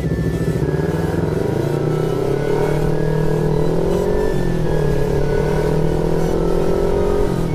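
Motorcycle engine pulling under acceleration, its pitch rising steadily, dropping briefly about four seconds in at a gear change, then rising again before another drop near the end.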